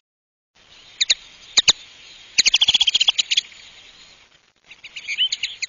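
Intro-animation sound effects: two quick double clicks like a computer mouse, then a rapid run of clicks with short high chirps, and a few more high chirps near the end, one rising in pitch.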